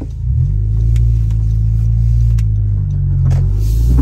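Low, steady rumble of a Honda car's engine and road noise heard inside the cabin while driving, with a few faint clicks.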